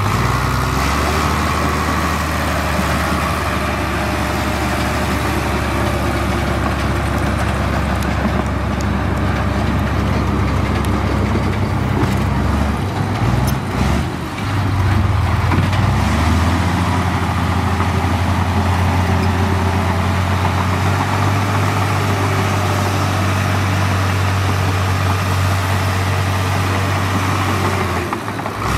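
Heavy earthmoving machine's diesel engine running steadily under load. About halfway through the note wavers and breaks up for a few seconds, then settles again at a slightly higher pitch.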